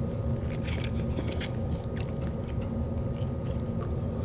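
A person chewing a mouthful of salmon and rice, with small wet clicks and smacks spread through, over a steady low hum.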